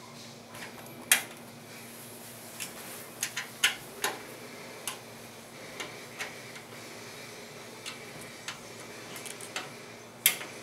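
Irregular sharp clicks and taps of a screwdriver working metal screws as hard-drive mounting screws are tightened into a computer case. The loudest clicks come about a second in and near the end.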